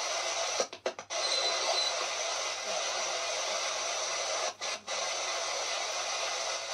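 Handheld spirit box sweeping the radio band: a steady hiss of radio static, broken by a few very short dropouts about a second in and again a little past the middle.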